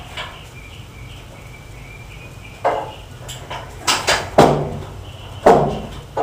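Metal truck-bed parts knocking and clanking as they are worked into place, with about five sharp hits in the second half, the loudest near the end.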